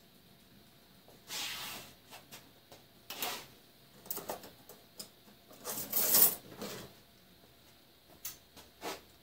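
An irregular run of short scrapes, knocks and clatters as tools and objects are handled and set down on a workbench, the loudest about six seconds in; the lathe is not running.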